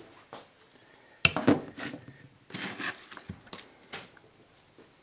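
Metal hand tools clinking and clattering as they are handled and set down, in several short, scattered bursts.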